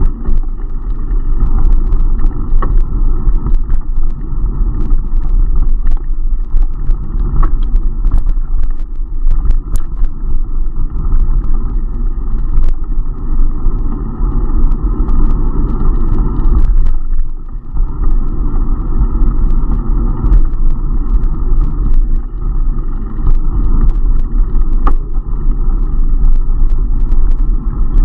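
Loud, constant wind rumble on an action camera's microphone while riding a bicycle, with scattered small rattles and clicks from the bike. It eases briefly about two-thirds of the way through.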